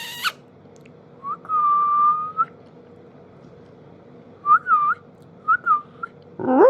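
A person whistling: one long, steady, high note, then a few short swooping notes. Right at the end, a quick rising sweep turns into a lower, falling, voice-like call.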